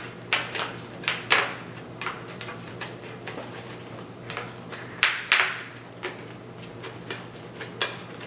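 A wooden popsicle stick scraping along EPP foam, pressing a fiberglass rod spar down into a channel cut in the wing. It comes as irregular short scrapes and rubs, the strongest a little past halfway.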